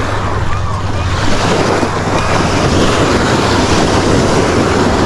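Surf washing in steadily, with wind buffeting the microphone as a low rumble.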